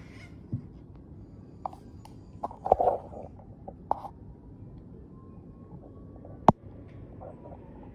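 A few scattered clicks and knocks, a short cluster about two and a half seconds in and the sharpest one about six and a half seconds in, over steady low room noise.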